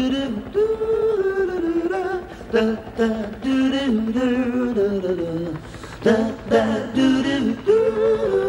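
Opening theme song: a singing voice carries a gliding melody over backing music.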